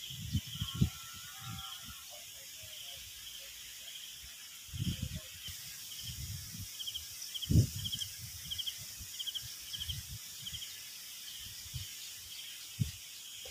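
Open-field outdoor ambience: a steady high hiss with short chirping calls repeating about twice a second, and a few brief whistled notes in the first couple of seconds. Scattered low thumps of wind or handling on the microphone, the loudest about halfway through.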